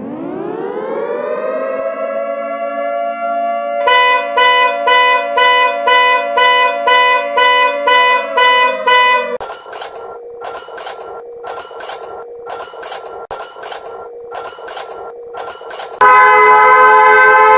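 Emergency-alert-style alarm tones: a siren-like tone winds up and holds, then pulses about twice a second, then gives way to a run of sharp high beeps, and near the end switches to a loud steady tone of several pitches.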